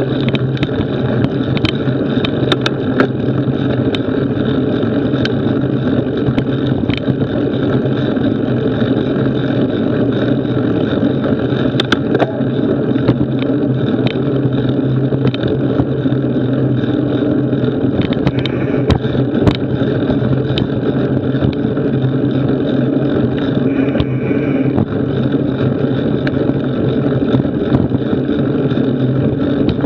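Fat-bike knobby tyres rolling over a dirt trail, picked up by a camera mounted on the bike: a steady rumble with scattered sharp clicks and rattles from bumps.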